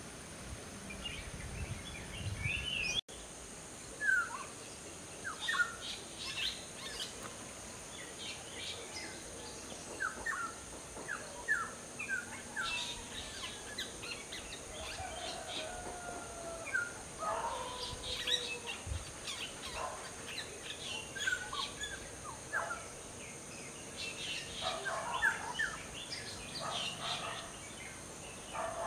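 Several birds calling: scattered short chirps and a few falling whistles, some in quick runs, over a steady high-pitched hiss.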